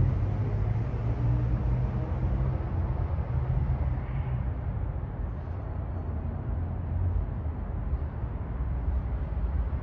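Steady low rumble of city street traffic, with a vehicle engine's hum more noticeable in the first few seconds.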